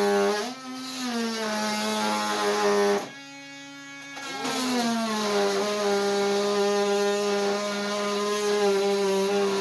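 Oscillating multi-tool with a carbide blade cutting through a steel lag bolt: a steady, high buzzing whine that goes quieter briefly about half a second in and again for about a second near three seconds, its pitch sliding as the blade takes load again.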